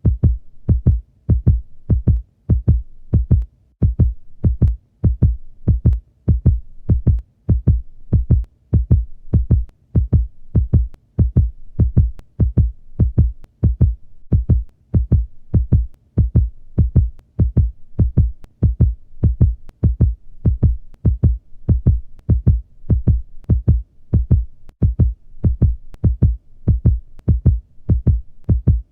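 Heartbeat sound effect: deep paired lub-dub thumps in a slow, steady, even rhythm.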